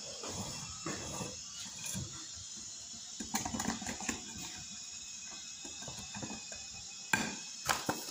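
Metal fork clicking and scraping against a glass bowl as semolina dough is stirred. The taps are light and scattered, with a busier stretch a few seconds in and a sharper knock about seven seconds in.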